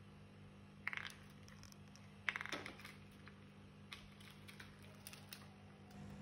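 Faint handling sounds of small gingerbread pieces being set on a plastic tray: a few light clicks and scrapes. The clearest come about a second in and about two and a half seconds in, with smaller ticks after.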